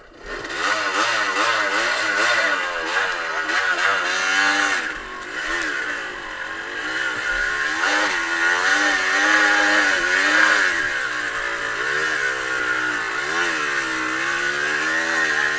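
Off-road motorcycle engine revving, its pitch rising and falling again and again as the throttle is worked.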